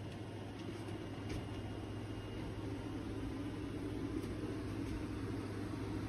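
Steady low hum with an even background hiss, with no clear source to pick out.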